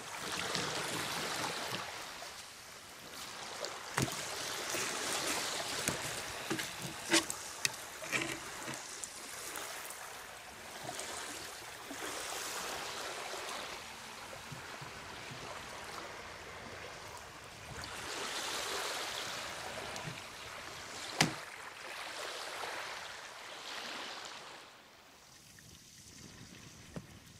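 Small waves washing at the water's edge, swelling and fading every few seconds, with a few sharp clicks over the top. The wash drops away near the end.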